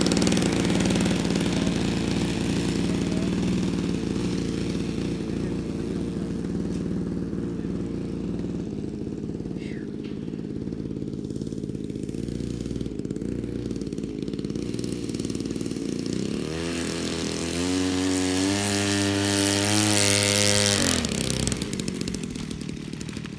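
Hangar 9 Corsair model airplane's engine running at idle, then throttled up about two-thirds of the way through and held at a higher pitch for a few seconds before being throttled back down near the end.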